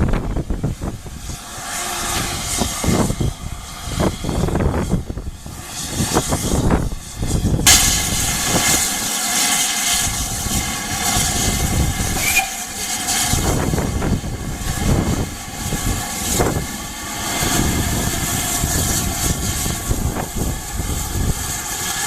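Steam locomotive releasing steam: a loud, steady hiss starts suddenly about eight seconds in and carries on, over an irregular low rumble.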